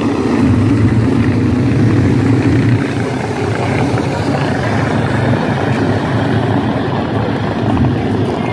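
A field of small winged dirt-track sprint cars running together in a pack, their engines making a loud, steady, continuous sound as they pass.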